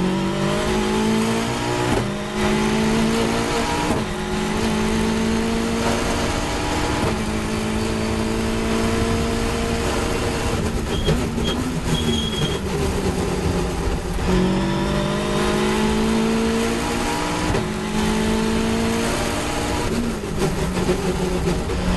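Caterham 420R's 2.0-litre Ford Duratec four-cylinder engine at racing revs, climbing in pitch through the gears with upshifts about two, four and seven seconds in. It drops back when the driver lifts off a few seconds after that, then climbs and shifts again, with a downshift blip near the end.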